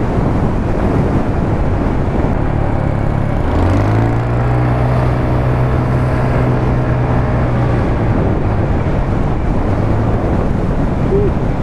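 Motorcycle engine and wind rush heard through a mic inside the rider's helmet. About three and a half seconds in, the engine note climbs as the bike accelerates, holds steady, then eases off around eight seconds in.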